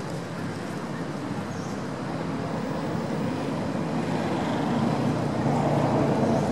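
Steady rumble of a running motor vehicle engine off camera, growing louder over the last couple of seconds.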